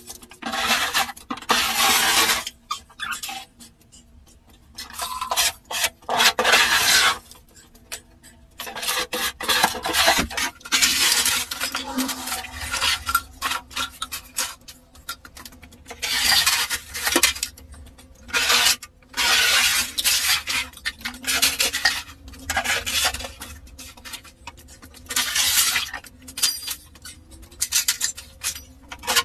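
Repeated scraping and brushing strokes with short pauses between them, from rubbish and dust being cleared out of a room.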